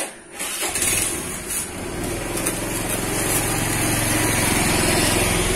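Motor scooter's small engine comes on about half a second in and runs steadily, growing louder over the next second or so.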